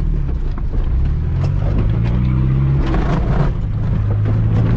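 Land Rover Discovery 300Tdi's 2.5-litre four-cylinder turbodiesel engine running as it drives along a rough track, heard from inside the cabin, its note rising and falling with the throttle. Scattered short clicks and knocks sound over the engine.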